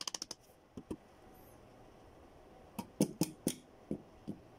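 Piston being tapped down through a ring compressor into the cylinder bore of a Toyota 1NZ-FE engine block with a tool handle. There is a quick run of light clicks at first, two short taps just under a second in, then a string of about six knocks in the last couple of seconds.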